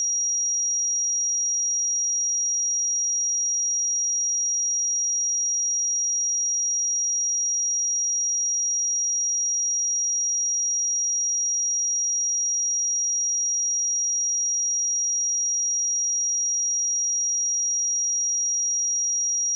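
A pure 5712 Hz sine-wave test tone, a single high-pitched note held steady at constant loudness.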